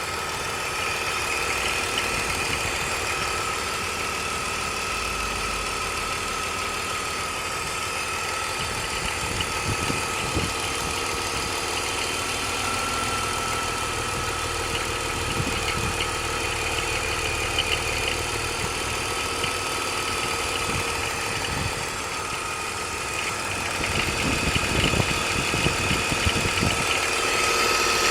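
BMW E46 engine idling with a steady high-pitched tone over it and scattered low knocks. This is the weird noise the owner is asking about.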